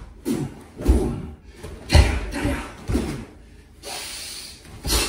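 Short forceful exhalations and grunts of effort, about five in a row, each with a dull thud of bodies and feet on the training mat, as a bear-hug hold from behind is being broken; the loudest comes about two seconds in.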